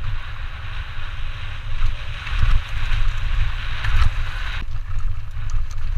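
Mountain bike riding fast down a rough dirt and stone trail, heard from a helmet camera: heavy wind buffeting on the microphone with knocks and rattles as the bike hits bumps, and a steady hiss of tyres on the loose surface that stops about four and a half seconds in.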